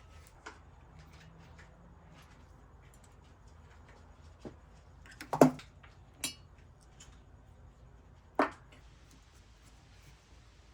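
Small metal turbo parts and hand tools clinking and tapping as they are handled: a few separate sharp clicks, the loudest about five seconds in and another near eight seconds.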